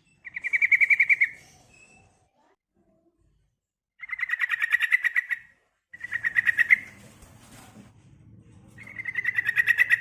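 Female yellow-vented bulbul (trucukan) calling: four short, fast trills of rapidly repeated notes, each lasting about a second. The call is a lure meant to set a male calling in reply.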